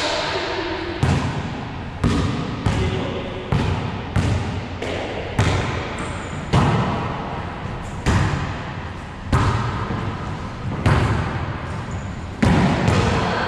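A volleyball being struck by hands and rebounding off the walls and floor of an enclosed racquetball court during a wallyball rally. About a dozen sharp smacks come at an uneven pace, each with a ringing echo from the bare walls.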